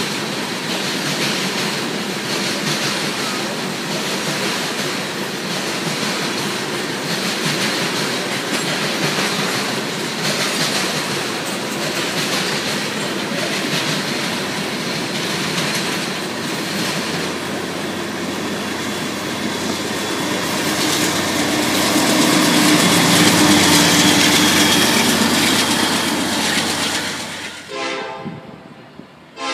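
Freight train of tank cars and boxcars rolling past close by: a steady rumble of wheels on rail with the clickety-clack of wheels over rail joints, growing louder for a few seconds late on. Near the end the rolling noise cuts away and a train horn begins to sound.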